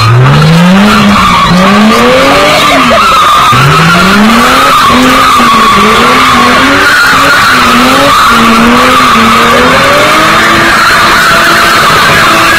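A BMW E30 'Gusheshe' straight-six engine revving hard in repeated rising pulls while the car spins on the spot, its rear tyres screeching against the tarmac. Loud throughout.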